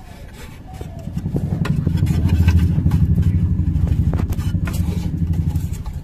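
A motor vehicle passing by: a low, rapidly pulsing engine rumble that swells about a second in, peaks, then fades away near the end.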